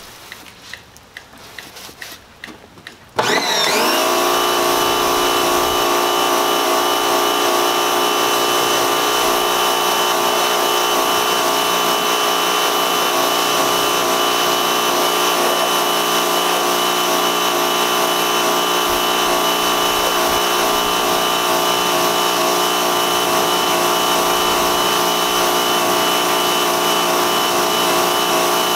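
Electric pressure washer kicking on about three seconds in, its motor whining briefly up to speed, then running steadily with the hiss of the water jet as the soap is rinsed off the car.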